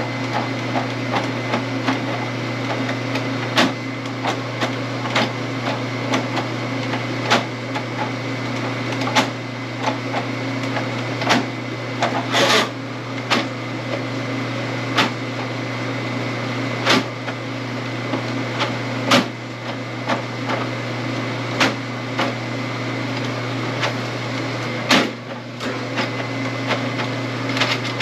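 Electric drum drain auger running steadily, its spinning cable clicking and knocking irregularly as it works in the drain line.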